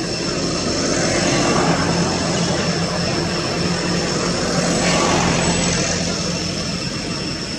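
Steady engine drone with a low hum that grows louder about a second in and eases off near the end, like a motor passing by.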